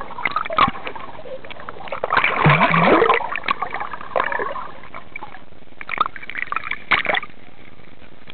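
Water sloshing and gurgling around a camera dipped in and out of the surface, with a louder surge of splashing about two seconds in and a cluster of short splashes around six to seven seconds.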